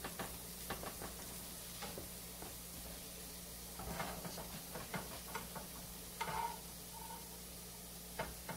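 Silicone spatulas tapping and scraping nonstick frying pans in light, irregular strokes as mushrooms are stirred, with a faint sizzle of mushrooms sautéing in butter.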